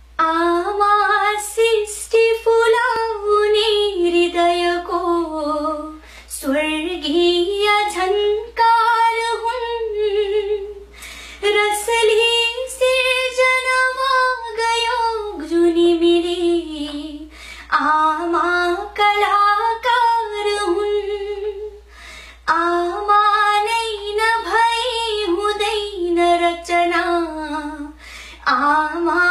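A young woman singing a Nepali poem unaccompanied in a sweet voice: a slow melody in held, gliding phrases of a few seconds each, with short breath pauses between them.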